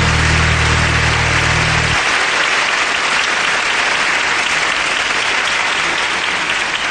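Audience applause, a dense steady patter of many hands clapping. A low held chord at the end of the music rings under it for the first two seconds, then stops.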